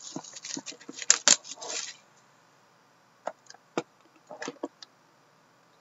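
Hands handling a cardboard trading-card box and the cards inside it: a quick run of scrapes and clicks for about two seconds, then a few scattered clicks as the cards are worked through.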